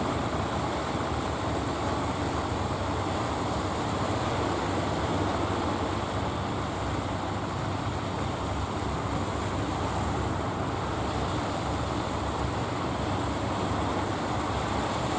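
Wooden fishing boats' inboard engines running steadily, a low even drone mixed with the wash of surf.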